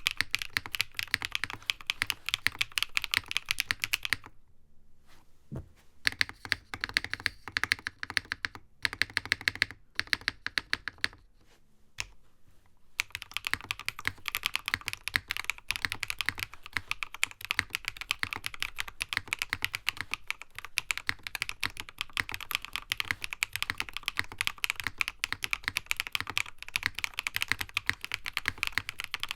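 Typing on a NovelKeys Classic TKL mechanical keyboard: rapid, continuous keystroke clacks, thinning out briefly a few seconds in and stopping for about a second near the middle before fast typing resumes.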